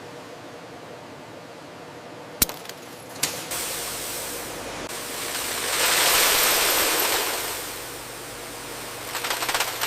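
Factory machinery sounds: a steady hiss, broken about two and a half seconds in by a sharp metallic click and another a moment later, then a rushing hiss that swells and fades, with a rattling clatter starting near the end.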